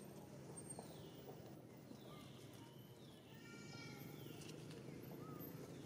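Faint animal calls: several short falling high squeaks and chirps, one a little past the middle with a fuller, layered tone, over low steady background noise.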